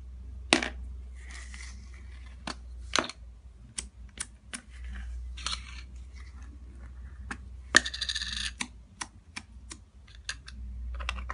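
Small plastic slime tubs and their lids clicking and knocking against a hard tiled surface as a lid is taken off. There is one sharp clatter with a short rattle about eight seconds in.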